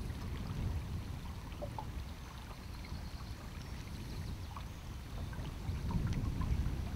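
Wind buffeting the microphone as a low, uneven rumble that swells about half a second in and again near the end, over faint small splashes of lake water lapping at the boat.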